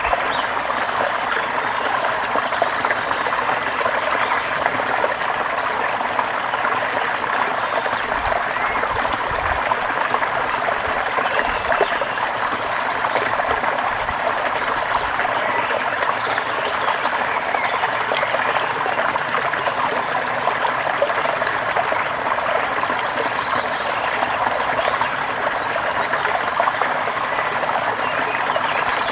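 Water flowing and splashing steadily over rocks in a forest stream or small waterfall, a constant rushing babble.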